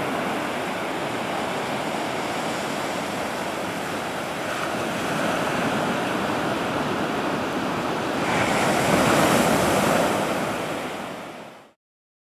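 Ocean surf washing up onto a sandy beach, a steady rush that swells louder as a wave comes in about eight seconds in, then fades out shortly before the end.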